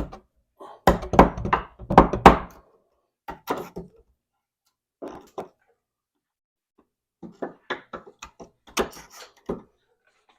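A hammer striking a chisel in short runs of sharp knocks, chiselling out a recess. The hardest blows come in the first few seconds, with pauses between the runs.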